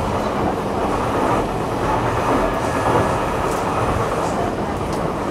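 Stockholm metro train running between stations, heard from inside the car: a steady rumble of wheels on the rails and motors, with a few faint clicks.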